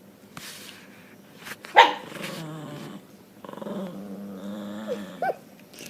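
Dogs growling and barking at each other in a mean-sounding squabble: one sharp bark a little under two seconds in, then long low growls with a short yelp near the end.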